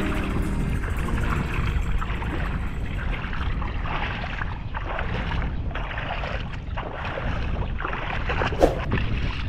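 Wind rumbling on the microphone, with irregular splashing of river water.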